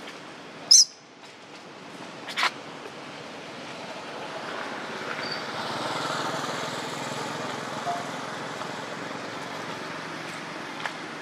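Steady outdoor background hiss, broken about a second in by a short, sharp, high-pitched sound and by a smaller sharp one a moment later.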